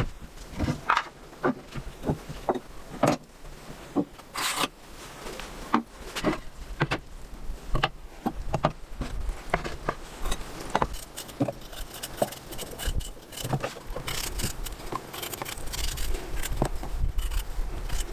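Irregular clicks, knocks and scrapes of materials being handled, spaced unevenly, with a longer scraping rush about four and a half seconds in.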